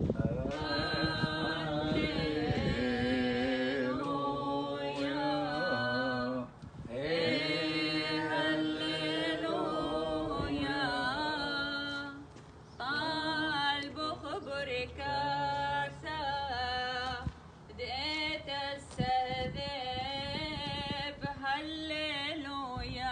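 Unaccompanied liturgical chant of a Chaldean Catholic hymn, sung by a small group of mixed men's and women's voices. The notes are long, held and ornamented, with short breaks between phrases.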